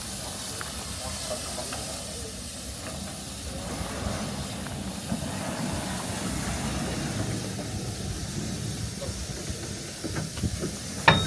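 Steam locomotive standing with a steady hiss of escaping steam. A single sharp knock comes near the end.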